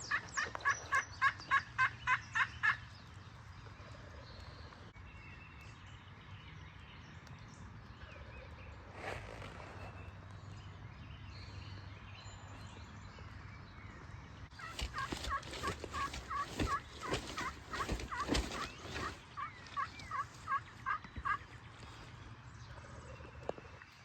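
Turkey yelping: a quick run of about ten evenly spaced yelps at the start, then a slower, longer run of yelps from a little past the middle, with sharp clicks mixed in. There is a short burst of noise between the two runs.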